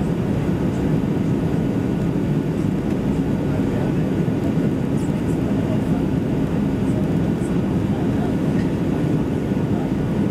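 Steady low rumble inside the cabin of an Airbus A320neo in flight: airflow and the drone of its Pratt & Whitney PW1100G engines, even and unchanging.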